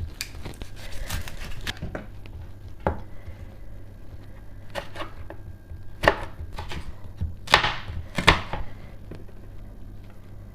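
Knife slicing half an onion on a cutting board: a quick run of light strokes at first, then single, sharper cuts about a second apart.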